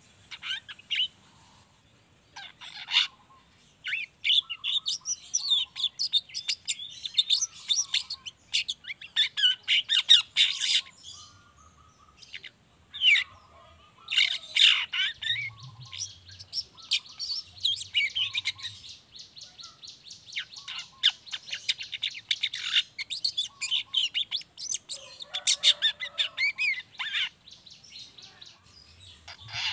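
Juvenile long-tailed shrike (cendet trotol) twittering in fast, chattering runs of high chirps and squeaky notes. This is the rapid 'ngriwik' twitter that fanciers play to get other young shrikes singing. The bursts come one after another, with short pauses, the longest a little before the middle.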